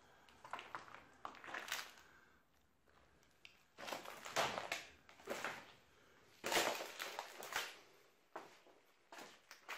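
Footsteps crunching over broken plaster, tile and debris on a concrete floor, in an irregular series of scrunching steps with short pauses between them.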